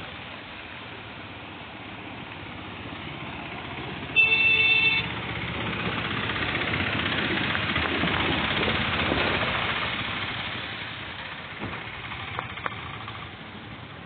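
A three-wheeled auto-rickshaw gives one short horn beep about four seconds in, then drives past through floodwater. Its engine and the wash of water splashing off its wheels swell to a peak about halfway and fade away.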